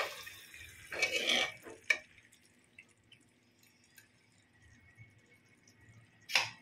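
Metal spoon stirring thick chicken masala in an aluminium pressure cooker: a scrape about a second in and a sharp clink just before two seconds, then mostly quiet with faint clicks, and another short scrape near the end.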